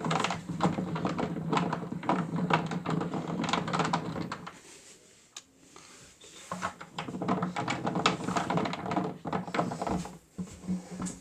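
Toy Miele W1 washing machine's small electric motor turning the drum with a rapid plastic rattle over a steady hum. It stops for about two seconds midway and then starts again, as in a tumbling wash phase.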